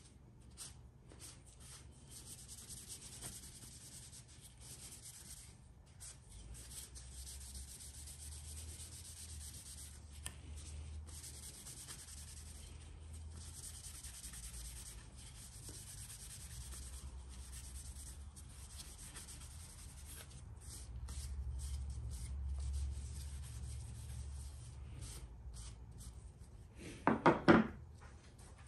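Steady hand rubbing strokes, like sanding on wood, over a low hum. Near the end comes a short, much louder burst of three quick sounds.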